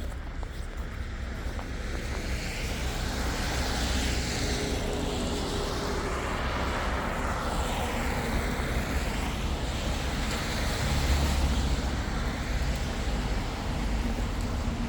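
City road traffic: cars driving past on the street, the noise building about two seconds in as vehicles pass close by.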